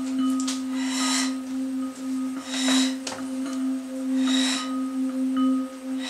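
Ambient background music: a steady held drone with faint higher tones, and swells of airy hiss about every second and a half.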